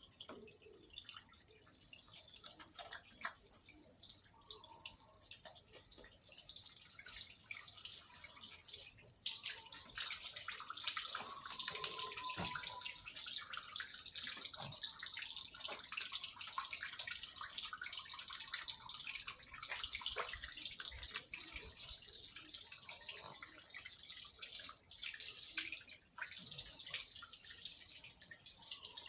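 Running water splashing steadily over a dog's coat as the turmeric paste is rinsed off, with scattered drips and small knocks, and one sharper knock about nine seconds in.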